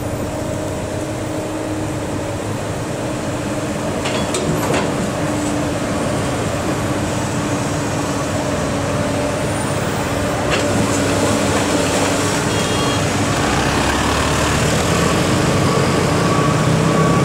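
Steady running of heavy diesel engines at the roadside, with motorcycles passing. The low rumble grows louder over the last few seconds as a vehicle comes closer.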